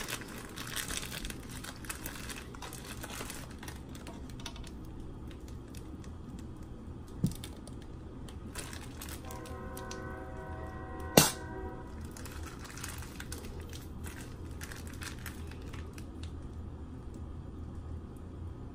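Plastic bag crinkling and rustling in the hands as soft biscuit dough is squeezed out of it onto a metal baking tray, with a light tap about seven seconds in and a sharp knock about eleven seconds in.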